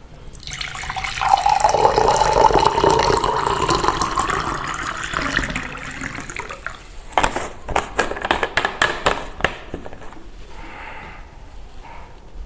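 Liquid poured into a container for about five seconds, its pitch rising as the container fills, followed by a quick run of light clicks and knocks.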